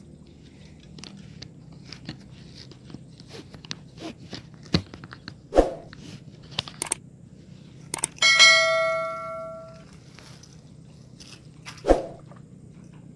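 A single bell-like ding with ringing overtones that fades away over about a second and a half, the notification-bell sound effect of a subscribe-button overlay. Around it, scattered rubbing and knocking from a hand handling the camera, with two sharper thumps.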